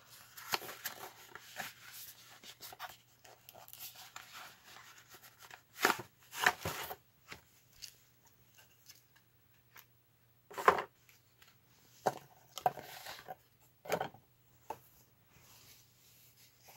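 Cardboard retail box and its insert being handled and opened, and fabric underwear pulled out and unfolded: scattered rustling and scraping, with about five louder brief rustles and knocks.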